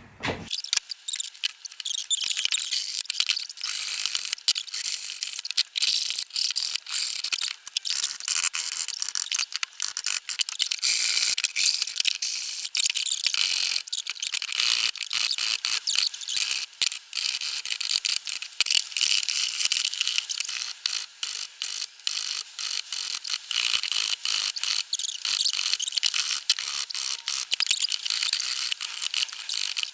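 Rapid, rasping strokes of a hand tool working pallet-wood timber, dense and unbroken after an abrupt start about half a second in.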